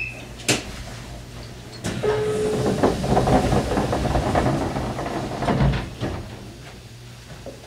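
Stopped JR Kyushu 817 series electric train, heard from inside the car as its doors close. A sharp click about half a second in, then a hiss with rumble for about four seconds starting about two seconds in, over a steady hum.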